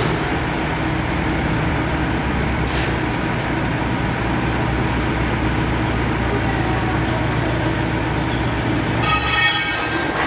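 Heavy diesel engine of a crane running steadily at a constant speed. Near the end there is a brief high-pitched squeal made of several tones.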